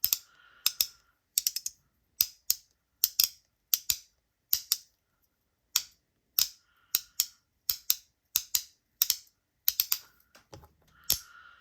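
Magnetic haptic fidget being worked by hand, its magnets snapping together in sharp clicks, often in close pairs, about one to two a second.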